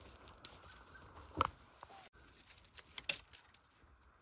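Dry bamboo stalks and leaves rustling and crackling as hands work through a bamboo clump to get at the young shoots, with louder cracks about a second and a half in and about three seconds in.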